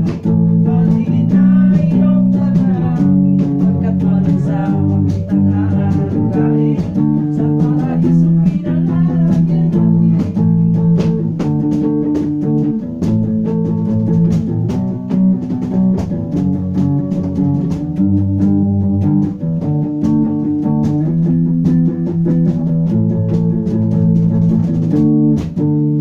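A band playing a song, with guitar and bass guitar to the fore.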